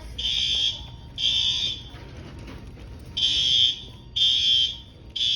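Fire alarm horn sounding the three-blast evacuation pattern: two loud, high-pitched blasts, a pause of about a second and a half, then three more. It is going off for an alarm test.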